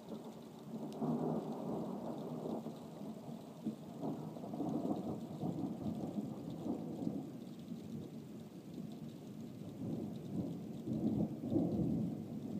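Rolling thunder rumbling over steady rain. The rumble swells about a second in, rolls on in uneven waves, and swells again near the end.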